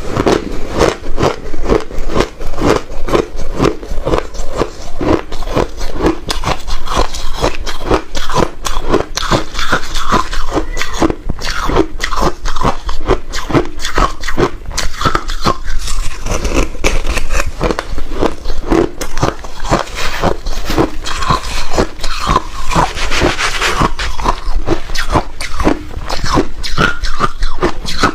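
Rapid, repeated crunching, several crunches a second and unbroken throughout.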